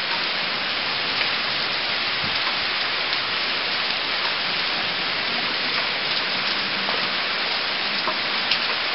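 Heavy hurricane rain falling steadily, an even hiss with a few faint drip ticks.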